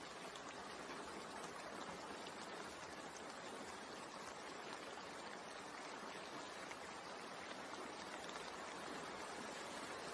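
Steady rain falling, an even hiss of drops that stays constant throughout.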